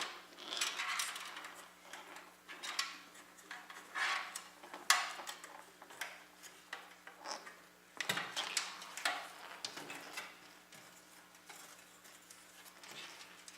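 Handling noise from PC cables being pulled through the cable-routing holes of a computer case: irregular clicks, clinks and rustling scrapes of cable and plastic against the case, busier at first and thinning out toward the end.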